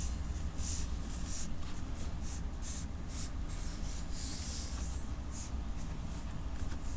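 Damp cotton cloth wiping across a laptop's glass display: short swishing strokes at an uneven pace, with one longer wipe about four seconds in.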